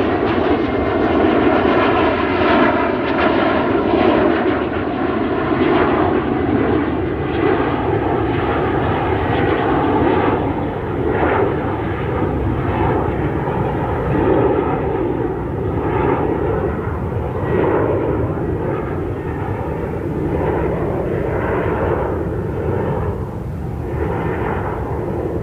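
Jet airliner climbing away after take-off, its engines making a loud, steady rumble. The high end of the sound slowly fades as the aircraft moves away.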